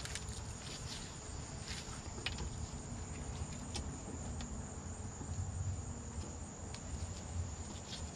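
Small tubing cutter being turned around a copper tube to cut it, giving faint scattered clicks and scrapes. A steady high-pitched insect trill runs under it throughout.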